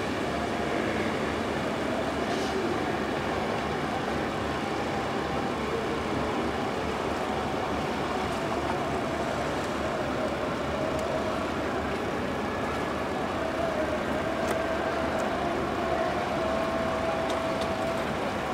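Steady rumble of passenger ships' engines in harbour, even and unbroken, with a faint wavering tone rising through it.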